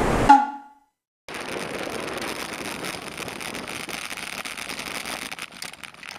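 Wind on the microphone that fades out within the first second, then, after a brief gap, steady wind and road noise from riding a bicycle, scattered with small clicks and rattles.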